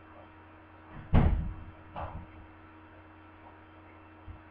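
A sudden heavy thump about a second in, then a softer knock a second later, over a steady low electrical hum.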